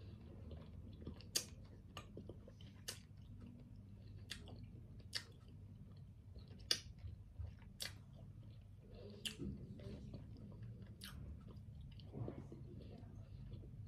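A person chewing food close to the microphone, with sharp, irregular mouth clicks and smacks about once a second.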